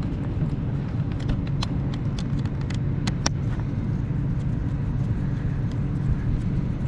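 Short clicks and taps of a battery wire connector and a plastic terminal cap being handled, several in the first half and a few later, over a steady low background rumble.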